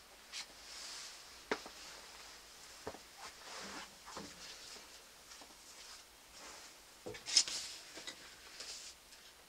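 Scattered light clicks and knocks from a chrome-and-black car grille being handled, with a louder clatter and rustle about seven seconds in as a hand takes hold of it.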